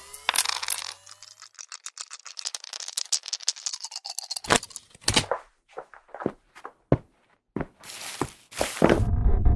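A string of short sound effects: a fast run of clicks and rattles, then a series of separate sharp knocks and clacks.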